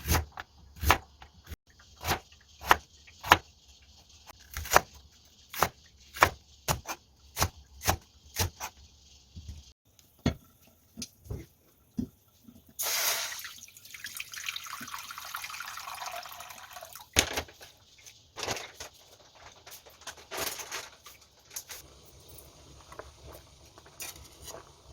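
A string of sharp knocks and clinks from kitchen work, then a kitchen tap running into the sink or a pot for about four seconds around the middle, followed by a few more knocks.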